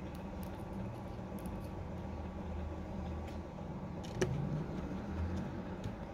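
Faint ticks and clicks of a precision screwdriver turning small screws into a phone's internal metal brackets, with one sharper click about four seconds in, over a steady low background hum.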